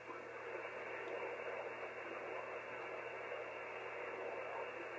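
Steady receiver hiss from an Elecraft K3 transceiver's speaker, tuned to the 6-metre band in upper sideband, with no station coming through. The hiss is cut off sharply above about 3 kHz by the receiver's filter.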